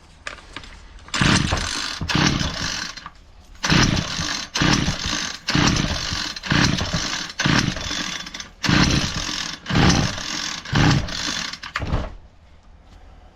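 Homelite 26cc two-stroke string trimmer being pull-started over and over, about a dozen quick rope pulls in a row, the engine turning over each time without catching. It is a no-start that the owner suspects is a bad carburetor.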